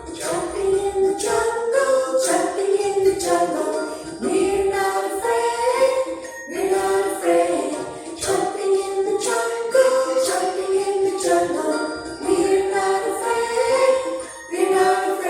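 A children's song playing: a sung melody over a bouncy backing with jingle-bell or tambourine percussion.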